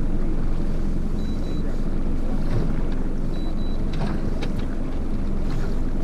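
Boat motor running steadily with a low hum, with wind on the microphone and a few light clicks.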